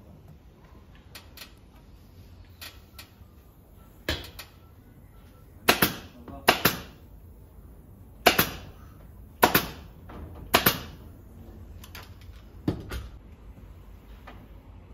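Upholstery staple gun firing into a sofa frame: about seven sharp shots at irregular gaps of one to two seconds, with a few fainter clicks in the first seconds.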